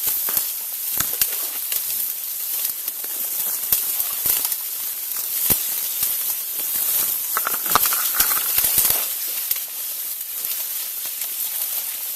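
Steady rushing hiss of creek water, with irregular crackles and crunches of footsteps moving through brush and leaves.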